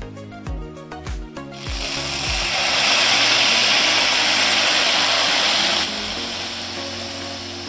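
Loud sizzling and spluttering as cooked dal is poured into hot oil with fried garlic and curry leaves (a tadka). It starts about a second and a half in and eases to a softer sizzle near the end. Background music with a beat plays throughout.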